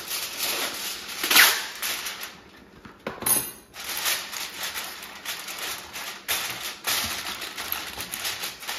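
Aluminum foil being pulled from its box and torn off, then crinkling and rustling as it is pressed and crimped over the rim of a glass baking dish. The crackling is loudest about a second and a half in, pauses briefly, then runs on as the foil is worked.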